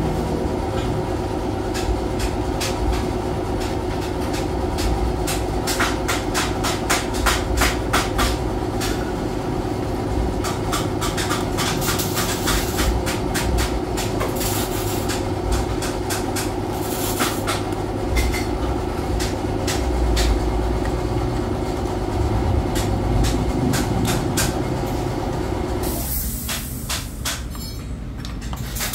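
Workshop machinery running with a steady hum that cuts off suddenly about 26 seconds in, over a low rumble. Quick runs of clicking and rattling metal come through it, most of them in the first half.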